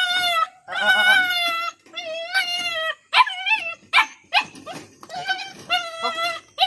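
A puppy shut in a wire crate whining: about eight short, high-pitched whines one after another, some wavering up and down in pitch.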